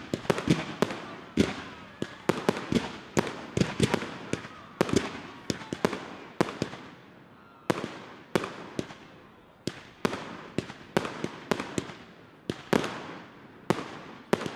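Professional fireworks display: dozens of sharp bangs from shells launching and bursting in irregular quick succession, sometimes several a second, each trailing off in a brief echo.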